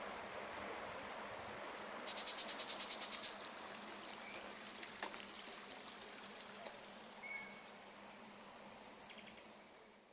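Steady, faint rush of flowing river water, with short high bird chirps now and then and a rapid buzzing insect trill about two seconds in. The sound fades out near the end.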